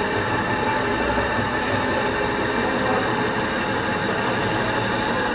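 Metal-working lathe running: a steady, continuous mechanical drone with several steady tones in it.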